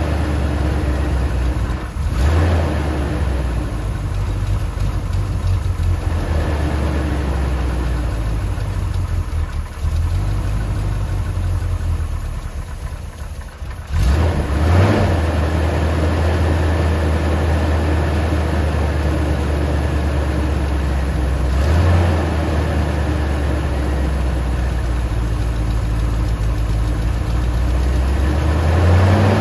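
The 1977 Corvette's L82 350 small-block V8 idling steadily, with a few short rises in the engine note about 2, 15 and 22 seconds in and again near the end.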